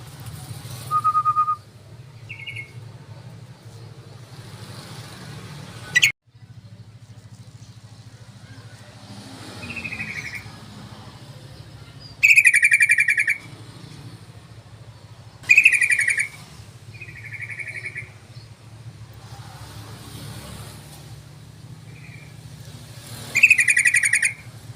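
Trucukan (yellow-vented bulbul) song: short chattering phrases of about a second each, repeated at irregular gaps, the loudest ones around halfway and near the end, over a steady low hum. A sharp click about six seconds in.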